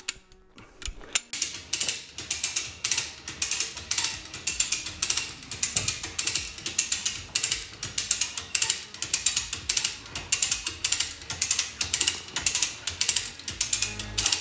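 Hand-cranked ratchet cable hoist clicking in repeated quick bursts as it is cranked, lifting a heavy laminated wood beam. The clicking starts about a second in.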